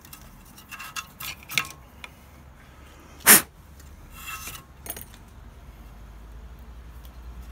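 Handling noise of an electric scooter's rear motor cable being worked through a drilled hole in the deck: a few short rustles and scrapes, one loud bump about three seconds in, more rustling and a small click near five seconds.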